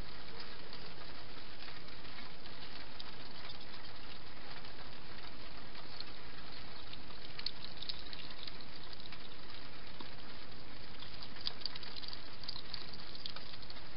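Steady hiss, with clusters of faint crackling clicks about halfway through and again near the end: a wild hedgehog chewing food.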